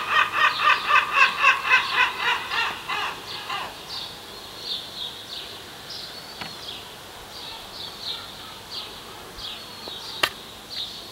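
Birds calling: a rapid run of loud calls, about four a second, for the first three seconds or so, then fainter, higher calls scattered through the rest. A single sharp click about ten seconds in.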